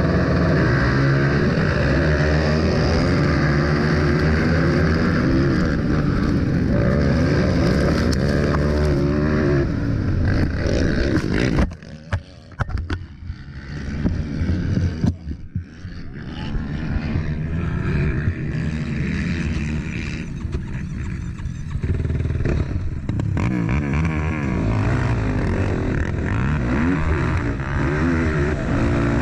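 Racing quad engines running hard at high revs off the motocross start, the rider's own quad loud up close. About twelve seconds in the engine sound cuts off suddenly with a few knocks as the quad crashes and tips over, then the engines of other quads are heard at a lower level, growing louder again near the end.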